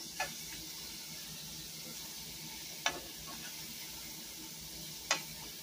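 Flour-coated chicken livers frying in hot olive oil, a steady sizzle, with three sharp clicks as they are turned in the pot.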